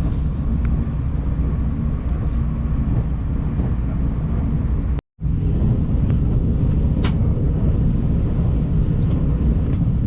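Steady low rumble of a Taiwan Railways express train running at speed, heard inside the passenger car, with a few faint clicks. The sound drops out completely for a moment about halfway through.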